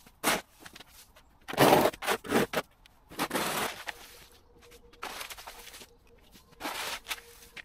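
Broom and hand garden tool scraping and sweeping dead leaves, twigs and soil across a tarmac footpath in short separate strokes, with footsteps between; the loudest strokes come about two seconds in.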